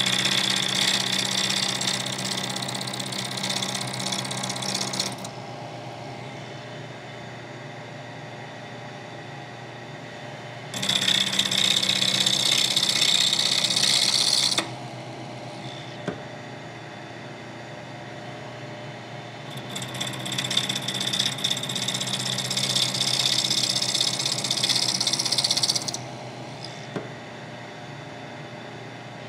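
Vertical milling machine running steadily while an end mill cuts a bronze crank arm. A louder, high-pitched cutting sound stops about five seconds in, returns from about eleven to fifteen seconds, and comes again from about twenty to twenty-six seconds. Between the cuts only the spindle's quieter, steady hum is heard.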